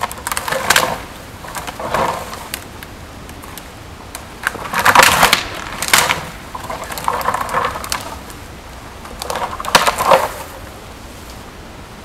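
Bull moose thrashing its antlers in a small spruce tree: about five bouts of branches cracking and needles rustling, the loudest around the middle.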